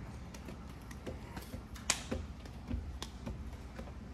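Scattered light clicks and taps from parts and tools being handled, with a sharper knock about two seconds in, over a steady low hum.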